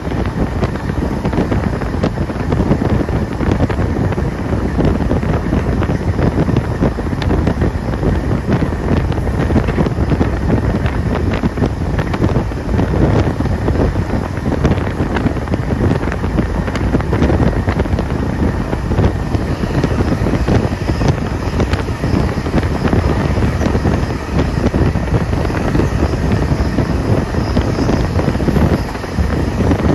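Steam-hauled passenger train running along, heard from onboard: steady wind rush buffeting the microphone over the low rumble of the train on the track.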